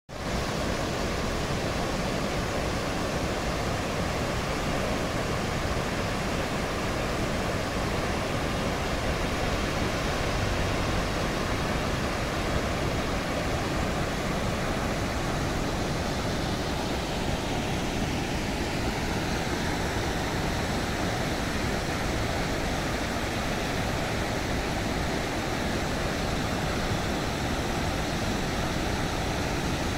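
Steady rush of river water pouring through an open gate of a concrete weir.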